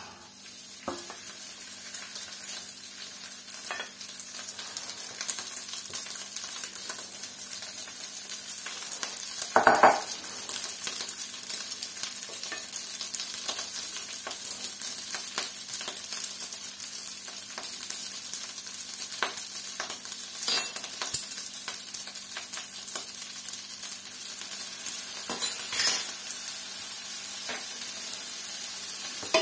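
Cold cooked white rice sizzling in hot oil in a wok, the sizzle starting as the rice is tipped in and then running evenly. A few short knocks break in, the loudest about ten seconds in.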